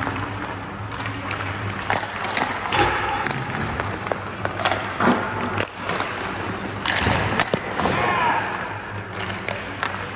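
Ice hockey shooting drill: pucks knocked off a stick and striking a goalie's pads, with skate blades scraping the ice. Several sharp knocks and scrapes over a steady hum in the background.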